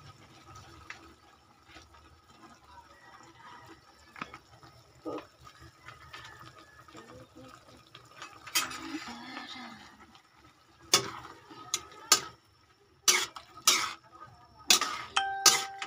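Metal spatula stirring pechay in a simmering aluminium wok, clinking and scraping sharply against the pan several times in the second half.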